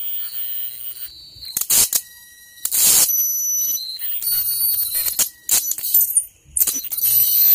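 High-pitched electronic tones from a speaker driven by a tone generator: several steady whines sounding at once, cutting in and out. They are broken by short bursts of hiss, the loudest about three seconds in.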